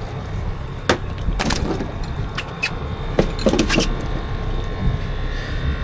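A scattering of short sharp knocks and clicks as fishing rods, line and a freshly landed bonito are handled against a boat's fiberglass deck and gunwale, over a steady low rumble.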